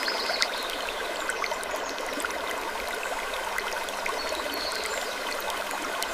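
Steady trickling of running water, a continuous stream ambience full of small splashes.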